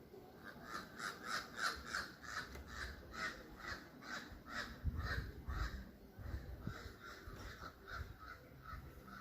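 A bird calling in a rapid series of repeated calls, about three or four a second, loudest over the first five seconds and then fainter. A low rumble comes in about five seconds in.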